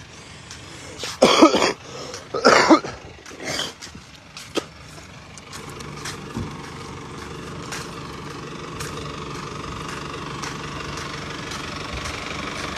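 A motor vehicle's engine running steadily, growing slowly louder from about five seconds in. Two brief loud sounds come before it, about one and two and a half seconds in.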